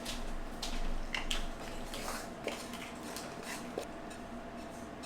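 A kitchen utensil scraping and knocking against a saucepan as thick, sticky tapioca starch dough is scooped out, in scattered short scrapes and light taps. A faint steady hum runs underneath.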